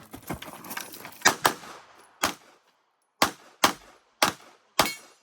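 A string of pistol shots: a quick volley in the first two seconds, then single shots about half a second to a second apart until near the end.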